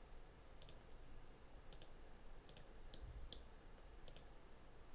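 Faint computer mouse button clicks, about half a dozen single clicks spaced unevenly, as the mouse is used to drag and resize an object on screen.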